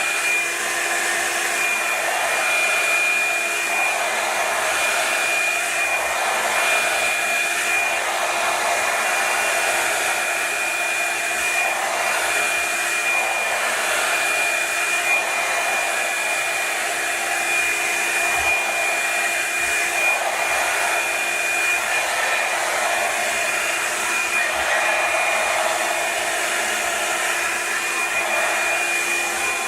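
Revlon One-Step hot-air brush dryer running steadily on its low setting, a rush of air with a steady high-pitched motor whine and a lower hum.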